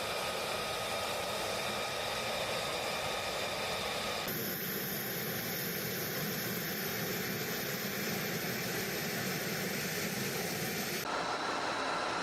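Fighter jet engine running at idle: a steady rushing noise with thin high whine tones over it. The sound changes abruptly twice, about four seconds in and near the end, with the whine tones shifting pitch each time.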